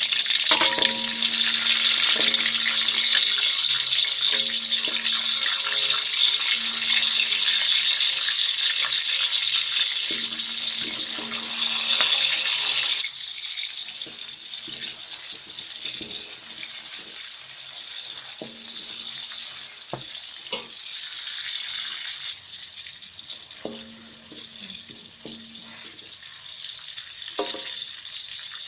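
Chilies sizzling in hot oil in a pan, with a spatula scraping and knocking now and then as they are stirred. The sizzle is loud at first, then drops sharply about halfway through and carries on more quietly.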